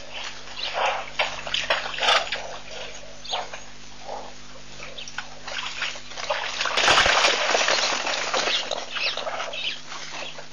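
Plains zebra herd at a waterhole: short splashes and stirrings at the water's edge, then, about seven seconds in, a loud rush of splashing and hooves as the skittish herd bolts away from the water in alarm.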